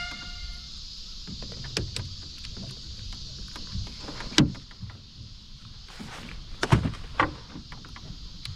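A few sharp knocks and clatters on a small fishing boat, the loudest about four and a half seconds in and again near seven seconds, over a steady low rumble.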